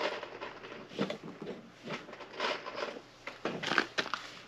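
Wooden rafter boards being handled and set on a timber frame: scattered knocks and rustles, the sharpest knock a little under a second before the end.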